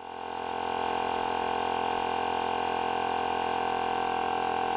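OutdoorMaster 'The Shark' 12 V electric SUP pump running in its high-pressure stage: a steady hum of many stacked tones that swells up over the first second and then holds. It is running slow, with a changed sound, because its power connection is starting to fail.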